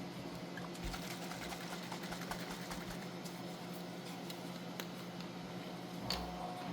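A steady low hum with faint, scattered small ticks and light scrapes, typical of small tools working a coin.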